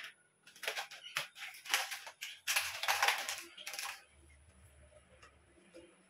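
Shoe rack shelf panels being handled and fitted together: a quick run of clicks, knocks and rattles for about four seconds, after which it goes much quieter.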